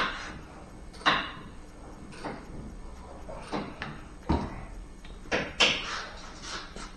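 Irregular knocks and clunks, about nine sharp ones spaced unevenly, the loudest right at the start, about a second in and near the middle-to-late part.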